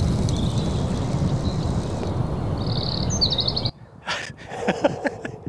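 Steady outdoor rushing noise that cuts off suddenly about three and a half seconds in. Just before it stops, a bird gives a short, rapid high trill.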